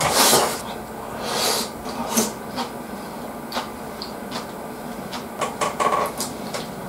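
Close-up sounds of someone eating salad with a spoon: chewing and wet mouth noises. There are a few noisy bursts in the first couple of seconds, then a run of small clicks between about five and six and a half seconds in.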